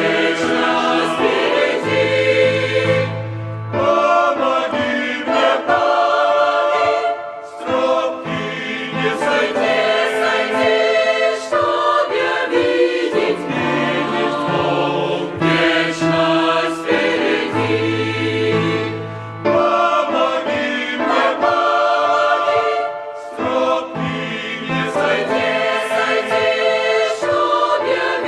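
Music: a choir of voices singing a song over sustained low bass notes.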